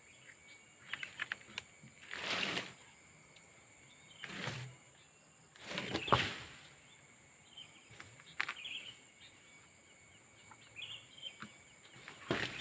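Quiet outdoor ambience: a steady high-pitched insect drone with a few faint bird chirps, broken by several brief rustling noises.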